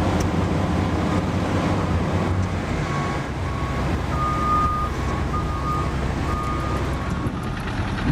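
Heavy machinery's diesel engine running steadily, with wind noise on the microphone. A series of short high beeps comes in about three seconds in and stops a second before the end.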